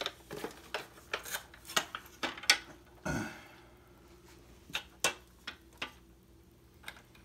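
Small hard parts clicking and clattering as a rotary-tool accessory kit is handled and sanding bits are picked out of it: a quick run of clicks over the first few seconds, a brief rustle about three seconds in, then a few scattered clicks.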